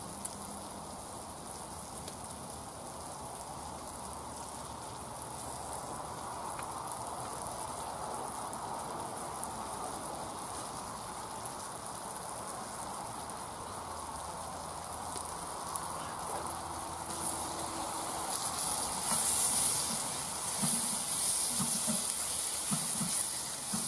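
Tomatoes and spices sizzling in a steel wok on a wood-burning stove. The sizzle grows louder and hissier from about two-thirds of the way in, and the pan is stirred with a spatula near the end.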